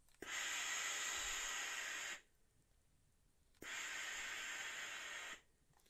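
Philips GC 8620 steam generator iron shooting pressurised steam from its boiler: two steady hissing blasts of about two seconds each, starting and cutting off sharply, with a pause of about a second and a half between them.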